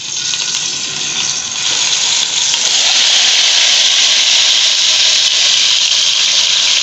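Yogurt-marinated chicken sizzling in hot oil as it is tipped into the pot, the wet marinade making the oil hiss loudly. The sizzle builds over the first two or three seconds, then holds steady.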